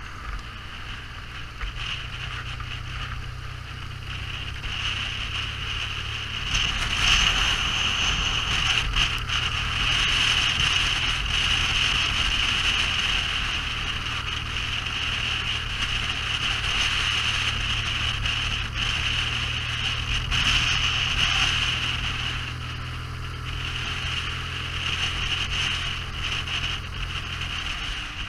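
A vehicle engine running steadily, a low hum under loud rushing wind noise, as when riding a motorcycle at speed. The low hum drops out just before the end.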